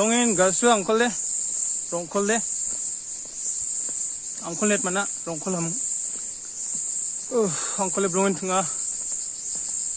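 Steady high-pitched insect chorus, a continuous shrill buzz with a gentle pulsing, running under a man's talking.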